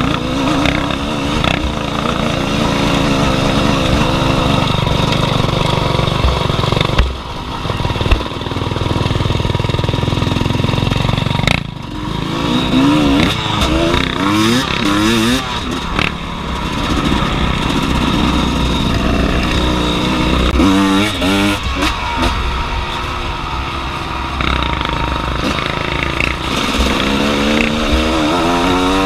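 Two-stroke engine of a 2003 Gas Gas EC 250 enduro motorcycle, heard from the bike, revving up and down as it is ridden hard on a dirt trail. The throttle is chopped briefly twice, about seven and twelve seconds in.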